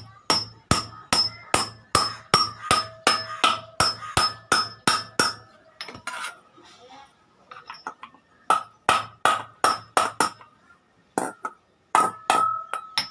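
Hand hammer striking iron in a steady rhythm, about two and a half blows a second, each with a short metallic ring. The blows stop for a few seconds partway through, then come back in two shorter runs.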